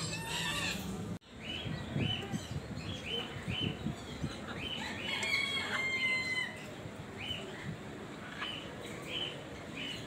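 Caged birds calling: short high chirps repeated every half second or so, with a denser cluster of longer pitched calls about five to six seconds in.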